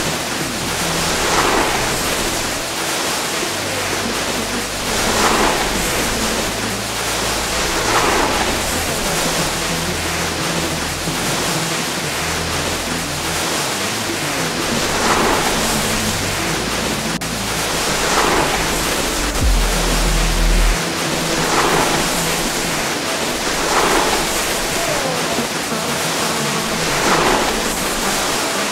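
Snowboard sliding and carving down packed snow, its edge scraping louder about every three seconds with each turn, over steady wind rush, with music underneath.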